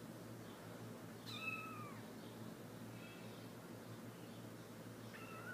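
Three-week-old Himalayan kittens mewing: one clear high-pitched mew about a second in that drops in pitch as it ends, a faint short mew about three seconds in, and another mew near the end.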